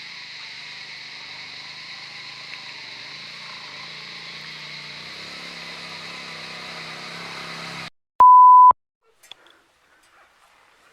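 A steady high hiss cuts off abruptly about eight seconds in. Moments later comes a single loud electronic beep: one steady high tone lasting about half a second.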